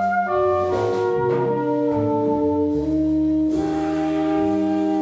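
A live contemporary jazz quartet playing. Alto and tenor saxophones hold long overlapping notes over a double bass that changes note every second or so. The drums' cymbals swell in about halfway through.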